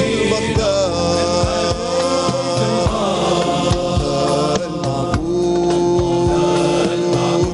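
Islamic devotional song (inshad): a male singer with choir sings a long ornamented vocal line over regular drum beats and band accompaniment. About five seconds in, a long steady note is held.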